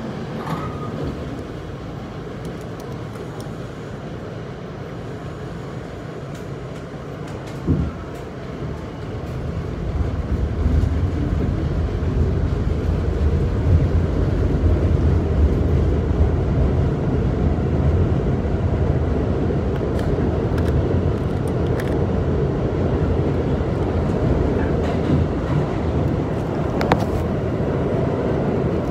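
Rumble of a New York City subway train heard from inside the car as it runs, getting louder about ten seconds in, with one short knock shortly before that.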